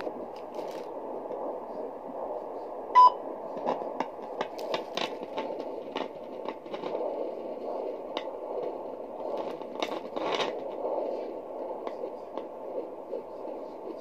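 Static hiss from a handheld home fetal doppler's speaker as its probe is slid over gel on the lower abdomen searching for the baby's heartbeat. Scattered scratchy crackles come from the probe moving, with a short beep about three seconds in.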